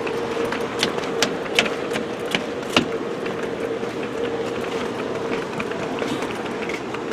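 Footsteps on a footbridge deck, sharp clicks about two or three a second that fade after a few seconds, over a steady hum.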